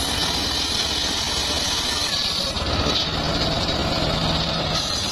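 The engine of a homemade circular sawmill running steadily at an even level, with a low hum that fades in and out.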